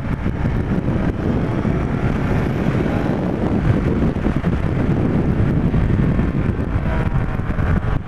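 Wind rushing over the microphone, with a Yamaha FZR1000 motorcycle's inline-four engine running underneath as the bike rides along, steady throughout.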